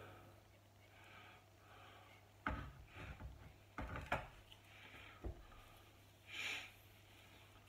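Faint handling sounds during varnishing: about four light knocks and clicks in the middle, then a soft swish as a sponge applicator wipes clear coat along a wooden table leg, over a low steady hum.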